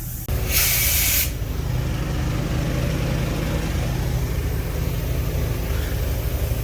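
Diesel truck engine idling steadily, with a short, loud burst of hissing air about half a second in.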